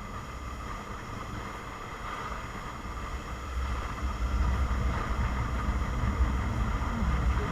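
Car driving noise: a steady low engine and road rumble with a faint wind hiss, getting louder about four seconds in.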